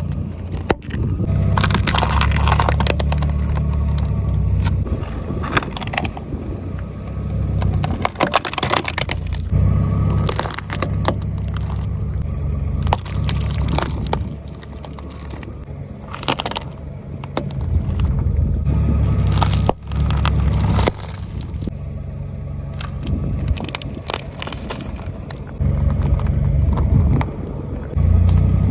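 A car's tyres rolling over objects and crushing them: a low rumble of the car in several long stretches, with many sharp crunches and cracks as things give way under the wheels.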